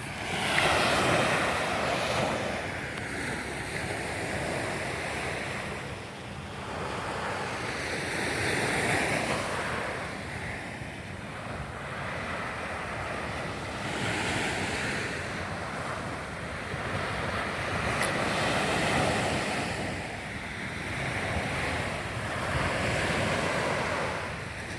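Sea waves breaking and washing in, the noise swelling and fading in surges every few seconds, with wind buffeting the microphone.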